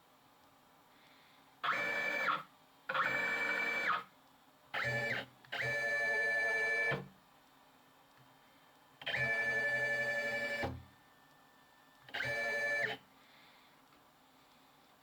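Desktop CNC milling machine's axis drive motors whining steadily in six short moves, each starting and stopping sharply, some with a brief pitch slide as they stop.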